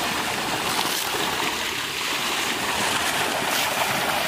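Steady rushing and splashing water: a pond crowded with baby hybrid magur catfish churning at the surface, with water pouring in from a pipe at the bank.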